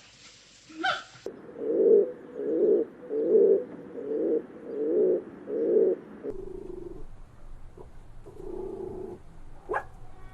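An animal making a run of low, evenly repeated sounds, about one every 0.7 s, followed by softer, steadier low sounds after a change of recording.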